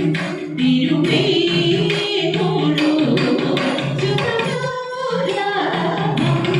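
Thiruvathirakali song: Malayalam devotional singing in Carnatic style, carried by a group of voices over a steady rhythmic percussive beat that keeps time for the dance.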